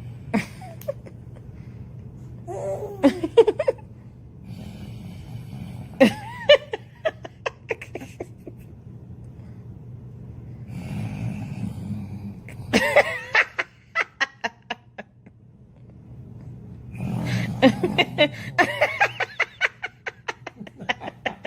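Repeated bursts of laughter, about five fits of quick ha-ha pulses, over the low snoring of a sleeping baby.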